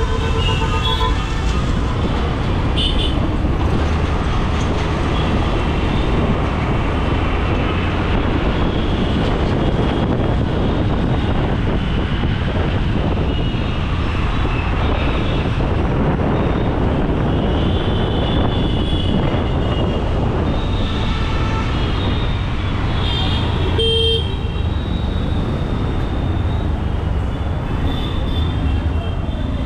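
Steady road traffic noise in a busy street, with vehicle horns honking briefly several times, including a short loud honk toward the end.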